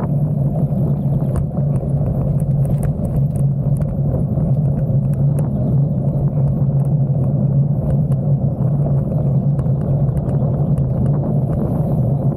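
Gravel bike tyres rolling on a paved road: a steady rumble with a low hum, and scattered small ticks from grit and bumps.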